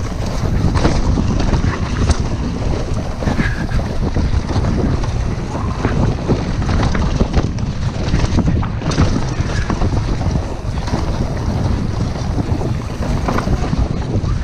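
Wind buffeting the action camera's microphone as a Devinci Spartan mountain bike descends a dirt singletrack at speed, with tyre rumble on the dirt and short rattles and knocks from the bike over bumps.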